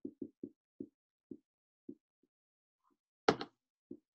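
Dry-erase marker writing on a whiteboard: a run of short, soft taps a few tenths of a second apart, with one louder, sharper knock about three seconds in.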